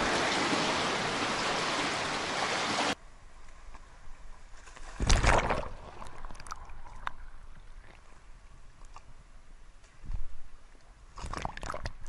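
Sea surf washing over rocks, a steady rush that cuts off abruptly about three seconds in. Then muffled underwater sound of the surf, with dull sloshing surges, the loudest about five seconds in and again near the end.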